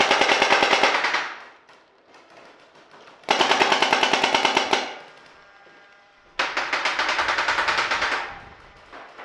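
Paintball marker fired in three rapid strings of shots, roughly a dozen shots a second. The strings come near the start, about three seconds in and about six and a half seconds in, each lasting one and a half to two seconds.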